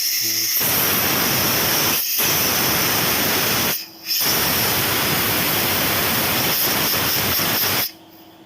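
Compressed air blown backwards through a car fuel filter to flush it out: a loud, steady hiss that breaks off briefly about four seconds in, resumes, and stops near the end.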